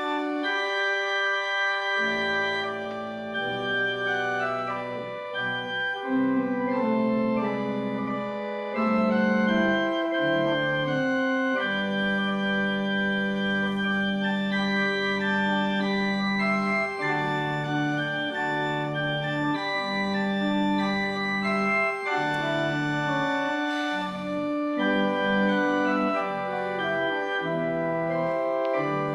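Organ playing the service prelude: long held chords over sustained bass notes that change every second or two.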